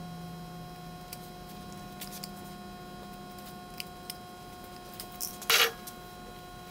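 Hands handling and rubbing a polished metal hammer head: faint rubbing and light clicks over a steady hum, with one short, loud scuff about five and a half seconds in.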